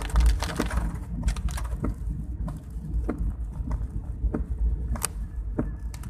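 Raindrops striking a moving vehicle in irregular sharp taps, over a low steady driving rumble.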